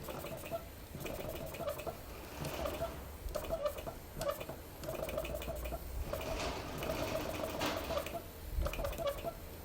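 Mamod toy live steam engine running, a quick, uneven clicking and chuffing that carries on throughout.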